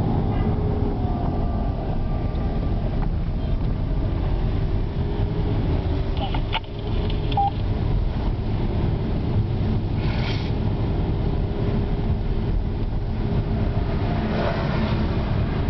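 Car cabin noise while driving on a wet road: a steady low rumble of engine and tyres. A short click comes about six and a half seconds in.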